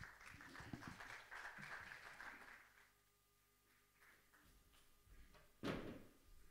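Faint scattered applause for about two and a half seconds, then near quiet with a few faint ticks, and a single sharp thump near the end.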